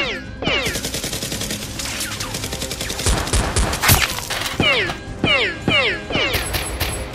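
Dubbed-in blaster gunfire sound effects: a rapid burst of shots for the first few seconds and a few heavier hits, then repeated falling 'pew' zaps about two a second, over background music.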